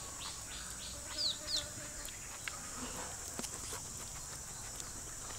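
Outdoor forest ambience: insects droning steadily at a high pitch, with a bird's repeated short falling chirps in the first second or two. A few light clicks of a spoon against the metal pan come later.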